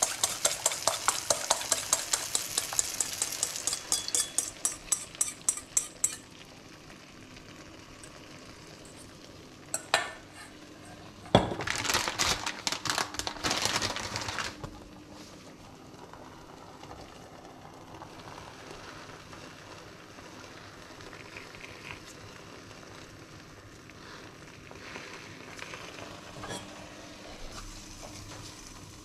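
Eggs beaten with a fork in a stainless steel bowl: a fast run of metal clinks that stops about six seconds in. A knock follows, then the plastic tortilla package crinkles for about three seconds, and after that the frying pan sizzles faintly and steadily.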